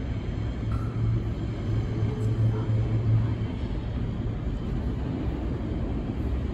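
New York City subway train approaching along the tunnel into the station: a steady low rumble that grows slightly louder near the end.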